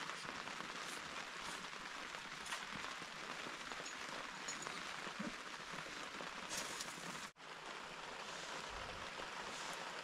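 Steady heavy rain with scattered louder drop ticks, cutting out for an instant about seven seconds in.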